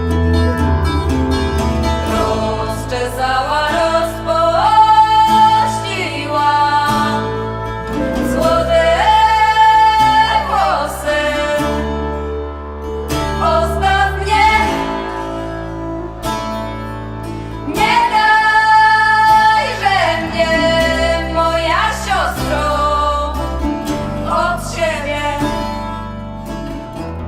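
Background music: a song with a singing voice over plucked guitar accompaniment.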